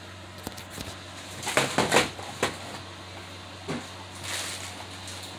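A quick run of sharp clicks and knocks about one and a half to two and a half seconds in, over a low steady hum.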